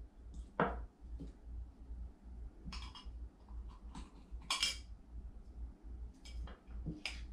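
Scattered clinks and knocks of a small glass jar handled on a table as pieces of straw and cup are pushed down into compost inside it. The loudest knock comes about four and a half seconds in.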